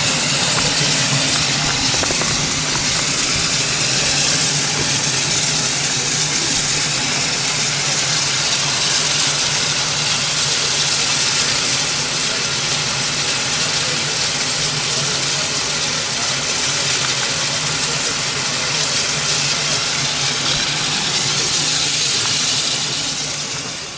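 Steam locomotive standing with steam hissing steadily and loudly, over a steady low hum.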